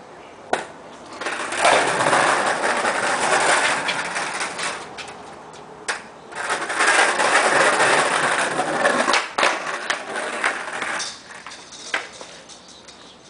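Skateboard wheels rolling on concrete in two long runs of rumble, with a few sharp clacks of the board striking the ground between and after them.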